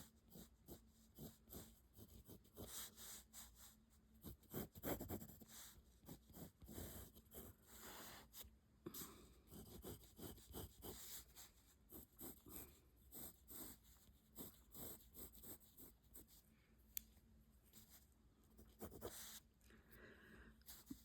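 Pencil drawing lines on card: faint scratching in a run of short, irregular strokes with brief pauses.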